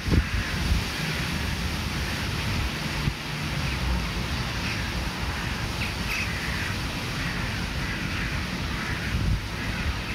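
Wind buffeting the microphone with a steady low rumble, and distant crows calling faintly over it several times, mostly in the second half.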